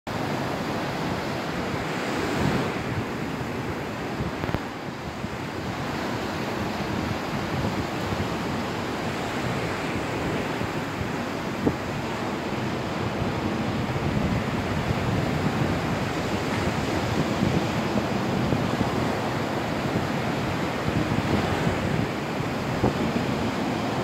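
Small sea waves breaking and washing up onto a sandy beach: a steady rush of surf that swells and eases, with wind buffeting the microphone. A single brief click about halfway through.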